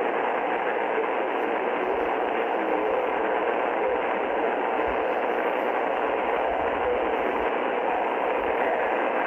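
Shortwave static from an Icom IC-R30 receiver tuned to 6.955 MHz upper sideband: a steady rushing hiss with no high treble, with the pirate station only faintly traceable beneath it.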